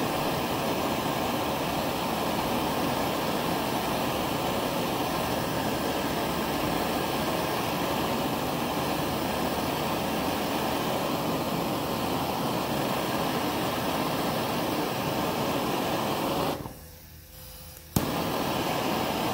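Bernzomatic MAP-gas hand torch burning with a steady hiss as it heats a shrink-fit tool holder. Near the end the hiss drops away for about a second and a half, then comes back with a sharp click.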